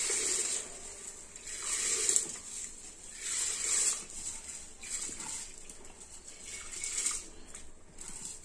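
Washed raw rice sliding off a plastic plate and pattering into a pressure cooker of boiling water, in about five separate pours.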